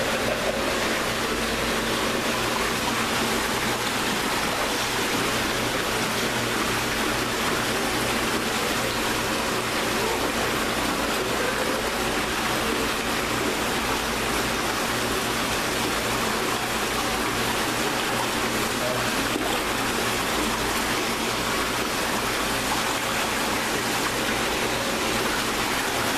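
Steady rush of running water at a koi pond, even and unbroken throughout.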